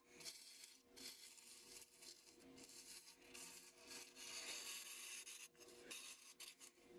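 Faint, irregular rubbing and scraping of parts being handled and worked by hand, coming and going in short stretches over a faint steady hum.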